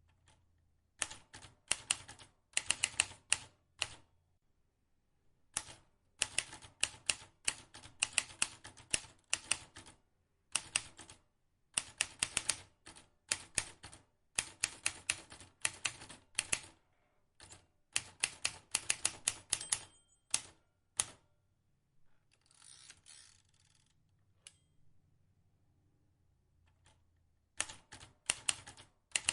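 Vintage typewriter keys being struck in quick runs of sharp clicks, broken by pauses of a second or so. Late on there is a brief rasping sweep, then a pause of a few seconds before the typing starts again.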